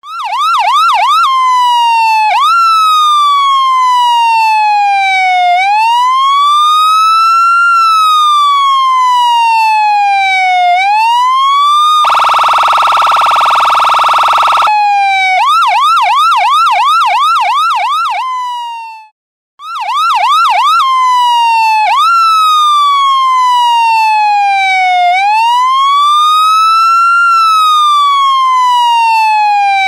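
Electronic emergency-vehicle siren switching between a fast yelp and a slow rising-and-falling wail, with a blaring horn tone for a couple of seconds near the middle and a brief cutout about two-thirds through.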